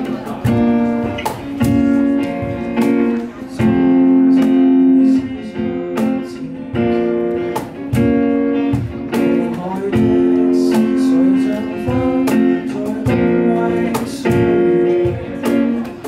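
Acoustic guitar strumming chords in a steady rhythm, each strum ringing on into the next.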